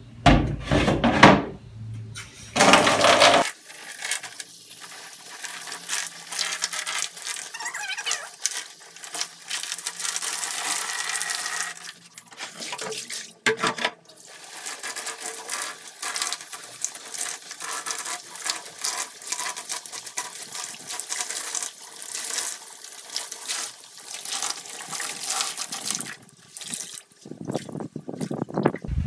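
Water splashing and sloshing as an indigo-dyed silk scarf is rinsed and squeezed by hand in a plastic basin of water. A few loud bumps come in the first few seconds.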